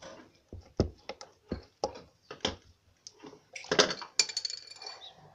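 Hands pressing and slapping red slime on a tabletop, making a run of short sticky clicks and pops, with a short ringing clink about four seconds in.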